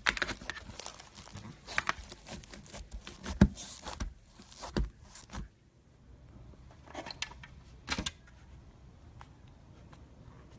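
Slime being squeezed, poked and stretched by hand: a dense run of sharp clicks, pops and crinkly crackles that thins out about halfway, with a couple of brief bursts of crackling later on.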